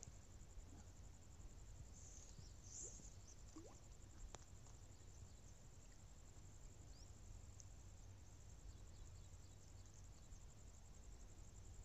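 Near silence: faint outdoor ambience, a low rumble under a faint, steady high buzz, with a few soft clicks.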